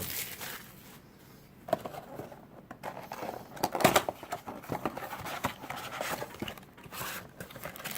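Cardboard trading-card blaster box being opened and its wrapped card packs handled: irregular rustling and scraping with sharp light knocks, loudest about four seconds in.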